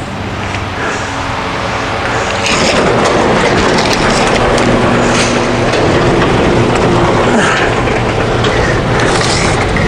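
Electric garage door opener lowering a sectional garage door: the opener's motor running and the door rolling down its tracks. It gets louder over the first two seconds or so, then runs steadily.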